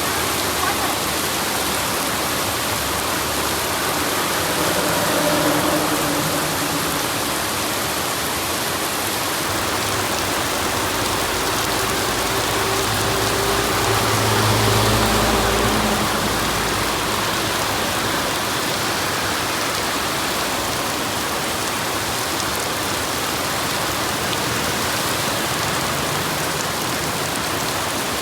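Steady rain falling, a dense even hiss of drops on surfaces. A low rumble with a faint hum swells and fades around the middle, and a weaker one comes a few seconds in.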